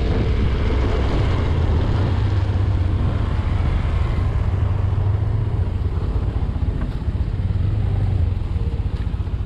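Motor scooter's engine running steadily as the scooter rides along, with rushing wind and road noise on the camera microphone; the engine note eases off near the end as the scooter slows.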